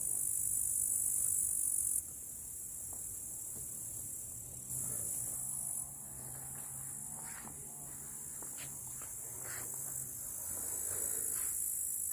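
Insects chirring in the grass: a steady, high-pitched buzz that gets louder and softer abruptly a few times.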